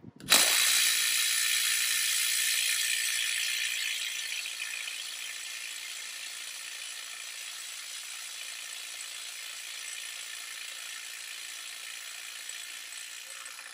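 DeWalt DCF921 ATOMIC 20V brushless 1/2-inch impact wrench hammering without a break on a nut torqued to 450 foot-pounds, which is at the top of its breakaway range. The rattle is louder for the first few seconds, then settles lower and steady, and cuts off sharply when the trigger is released. The nut only starts to move after about ten seconds of hammering.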